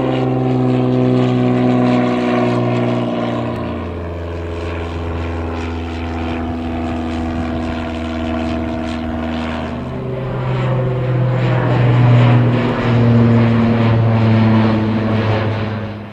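Single-engine piston propeller aircraft flying low overhead: a loud steady engine and propeller drone whose pitch changes suddenly a few times as one plane gives way to the next, with a falling pitch shift a little past the middle, then dropping away sharply at the end.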